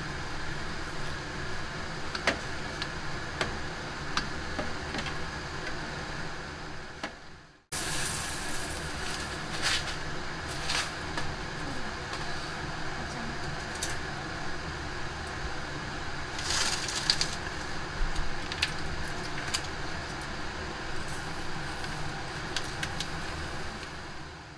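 Wooden spatula stirring melted chocolate and then corn flakes in a non-stick pot: scattered scrapes and light clicks against the pan, with a few short crackling spells as the flakes are turned, over a steady hum. The sound breaks off briefly about eight seconds in.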